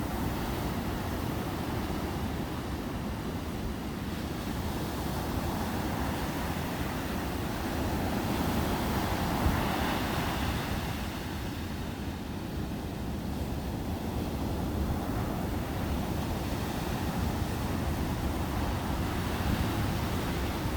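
Sea waves breaking in steady surf, a continuous rushing wash that swells louder about halfway through and then eases off.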